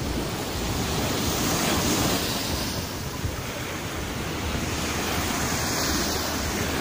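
Small waves breaking and washing up a sandy beach, the surf rising and falling, with wind buffeting the phone's microphone in a low rumble.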